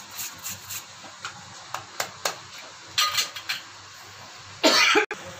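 Ginger being grated over a steel bowl: quick rasping strokes, several a second, that stop within the first second. Then come a few light metallic clicks and clinks, and near the end a louder clatter of steel kitchenware that cuts off abruptly.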